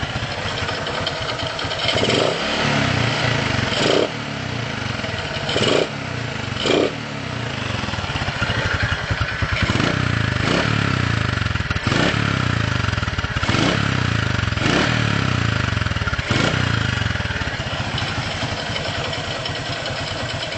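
Motorcycle carburetor engine running with the rough, uneven "snoring" note (ngorok) of a carburetor fault, surging briefly every second or two.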